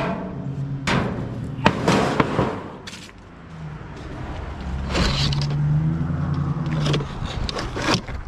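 A steady engine hum runs under knocks and scrapes of metal and plastic being handled. Near the end there is a sharp clatter as the lid of a plastic wheeled trash cart is flipped open.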